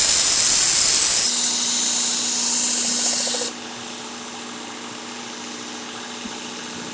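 Abrasive belt of a Work Sharp Ken Onion Edition sharpener with its Blade Grinding Attachment, grinding the steel edge of a Wüsthof chef knife. The grind is a loud hiss for about the first second, then softer until about three and a half seconds in. There the blade comes off the belt, and the motor runs on with a steady hum.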